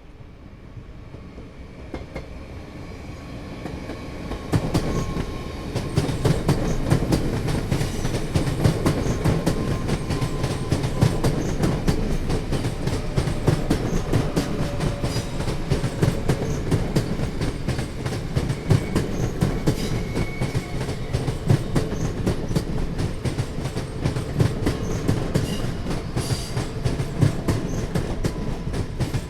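Train rolling past, its wheels clacking rapidly over the rail joints. It grows louder over the first five seconds, then runs on as a steady, dense clatter over a low rumble.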